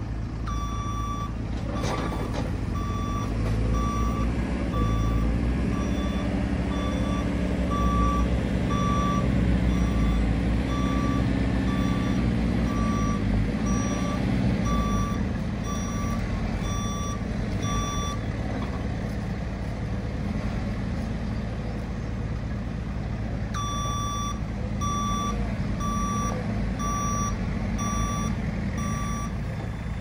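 JCB 4CX backhoe loader's reversing alarm beeping in a steady run, a little faster than once a second, over the machine's diesel engine running. The beeping stops for about five seconds past the middle, then starts again.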